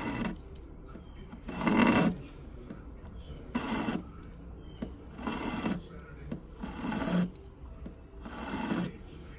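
Hand metal file rasping on an 18 karat gold ring, in six slow, even strokes about one every second and a half to two seconds, filing down an inserted piece to sit flush.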